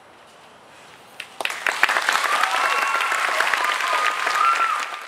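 Audience applauding and cheering, breaking out suddenly about a second and a half in, then cutting off abruptly near the end.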